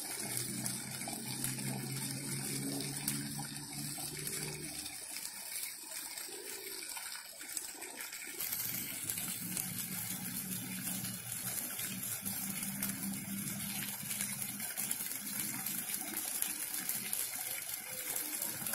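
Jets of a splash-pad fountain spraying and water splashing down onto the wet basin and paving, a steady hiss, with a low hum beneath it at times.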